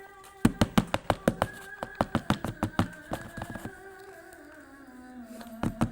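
A quick run of sharp taps or clicks, about six or seven a second for some three seconds, then two more near the end, over a faint steady tone that slowly falls in pitch.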